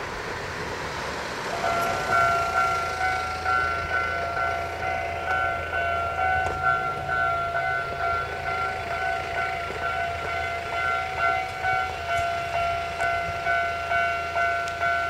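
Railway level-crossing warning bell ringing: an electronic ding repeating steadily about twice a second, starting a couple of seconds in.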